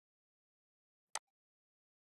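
A single sharp computer mouse click about a second in, against near silence.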